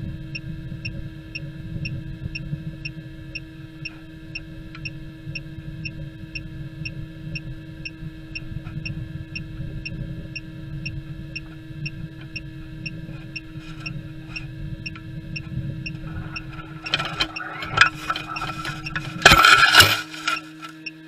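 Student-built sounding rocket coming down under its parachute: a steady electronic hum over a rumble of airflow, with a faint regular tick about twice a second. About 17 seconds in, rustling and scraping start, and about 19 seconds in the rocket hits the ground with a loud crash and scrape. Only the hum is left after it.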